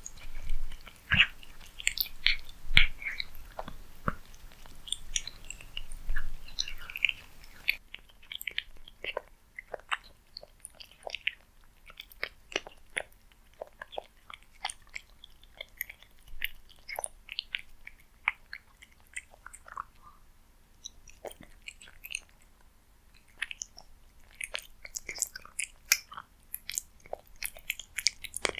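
Cat chewing food: an irregular run of small clicks and crunches, louder in the first few seconds.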